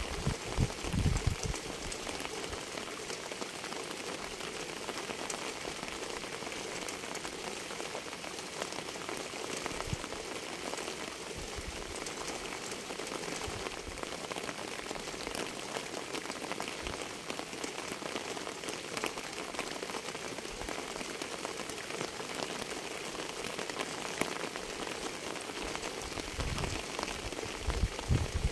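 Steady rain falling on a surface, with many separate drops ticking through an even hiss. A low rumble comes in the first second or so and again near the end.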